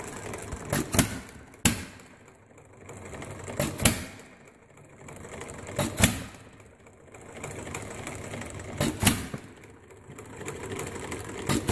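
Scale-model Briggs double side-shaft gas engine running on propane through a makeshift pipe-tube mixer. It fires with a sharp bang every two to three seconds and clatters mechanically between firings, running well.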